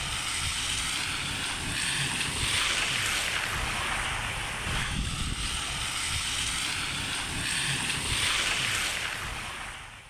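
Wind buffeting the microphone of a camera moving along with a bicycle, a low rumble under a hiss that swells and ebbs every couple of seconds. It fades out near the end.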